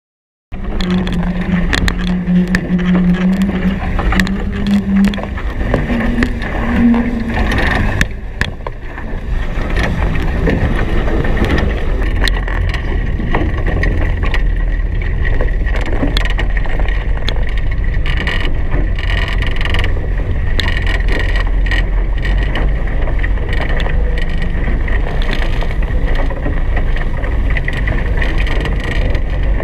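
Steady rush of wind on the microphone and water against the hulls of a Hobie Cat 16 catamaran sailing fast, with a deep rumble underneath. A humming tone runs through the first seven seconds.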